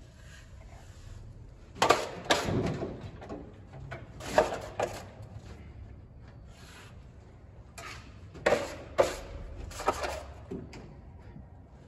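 Short scrapes and knocks of a steel finishing trowel working joint compound on a drywall ceiling, spaced irregularly, the longest scrape about two seconds in and a cluster of sharper knocks near the end.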